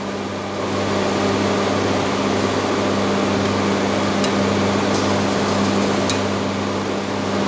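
Steady mechanical hum of a running motor or fan, with a few faint light clicks in the second half.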